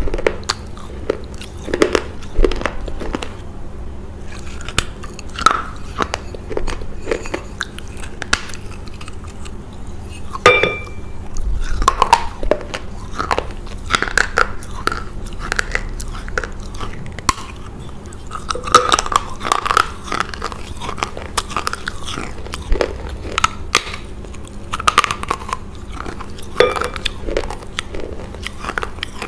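Biting and chewing pieces of a baked clay pot, close to a lapel microphone: irregular sharp crunches and crackles that keep coming throughout.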